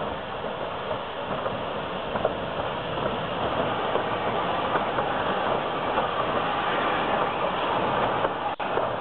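Beattie 2-4-0 well tank steam locomotive 30585 running slowly past, with the irregular clicks and clanks of its wheels and motion over a steady noisy hiss, growing slightly louder as it draws level. The sound cuts out for an instant near the end.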